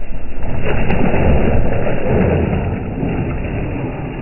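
A car tyre rolling slowly over a row of tomatoes on concrete, squashing and bursting them, with the car's tyre and engine noise underneath. It swells about a second in and fades toward the end.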